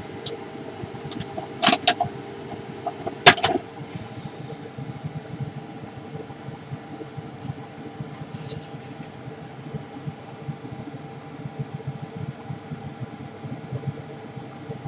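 CNC laser engraver running, its fan and motors giving a steady hum with a few level tones. A few sharp clicks come about two seconds in, with the loudest about three seconds in.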